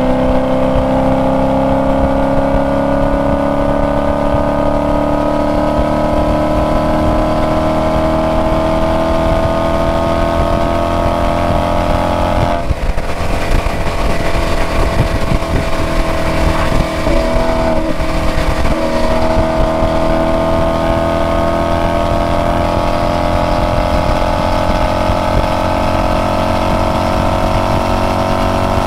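Maserati Quattroporte Sport GTS's 4.7-litre V8 and exhaust pulling hard at high speed, its pitch climbing slowly. About 13 seconds in the note breaks briefly, like an upshift, and it wavers again a few seconds later before pulling steadily on.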